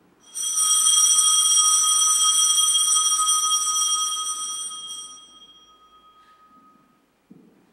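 Altar bell rung at the elevation of the host during the consecration: one bright ringing tone with higher overtones, holding for about four seconds and then fading, the lowest note lingering longest. A soft knock near the end.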